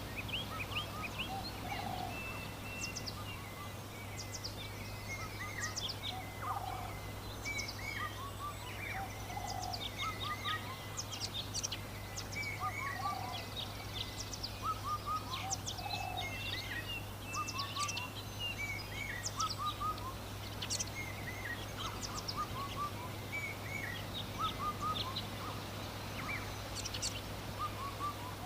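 Birds chirping throughout, many short overlapping calls, with a lower call every few seconds, over a steady low hum.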